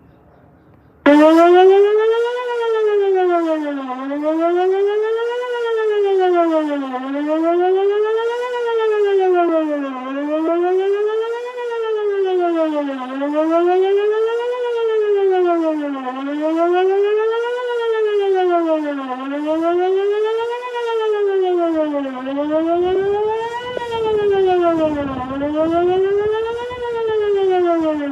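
Electronic outdoor warning siren sounding a wail signal for a test. It comes on abruptly at full strength about a second in, then rises and falls in pitch about every three seconds.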